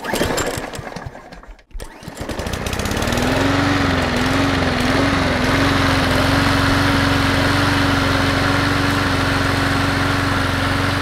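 Small lawn mower engine sputtering for a moment and cutting out, then catching about three seconds in. It rises in pitch, wavers briefly, and settles into a steady run.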